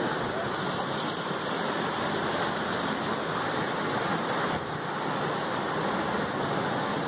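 Pacific Ocean surf breaking and washing, a steady rushing noise.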